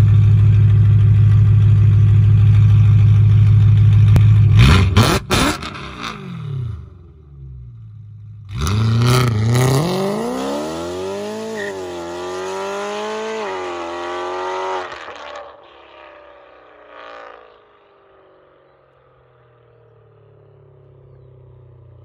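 BMW E92 M3's S65 V8 through a straight-piped Armytrix valvetronic exhaust: a loud steady idle at the tailpipes, a few sharp cracks about five seconds in, then a hard acceleration with the engine pitch climbing through two upshifts before it fades away into the distance.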